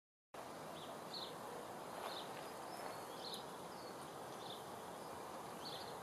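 Outdoor natural ambience: a steady soft hiss with short, high chirps repeating about once a second from a small bird or insect.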